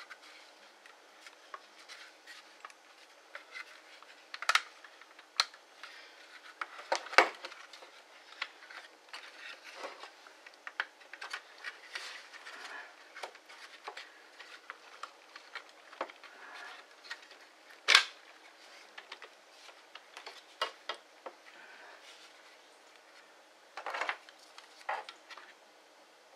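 Scattered light clicks, taps and rattles of plastic housing parts, wires and small components being handled as a cordless hammer drill is reassembled, with a few sharper knocks now and then.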